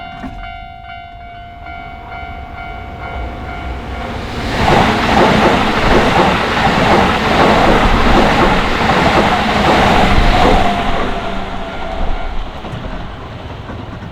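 Keisei Main Line train passing over a level crossing, its wheels clattering over the rails. It builds over the first few seconds, is loudest for about six seconds, then fades away. Under it the crossing's electronic warning bell keeps ringing as a steady tone.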